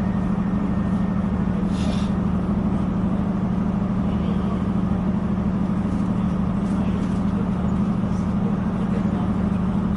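Passenger train running, heard from inside the carriage: a steady low drone over a constant rumble of running noise, with a faint brief click about two seconds in.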